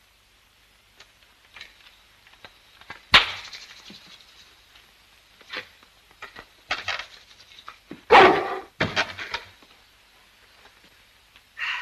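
St. Bernard dog barking several times in separate barks, the loudest about three seconds in and around eight seconds.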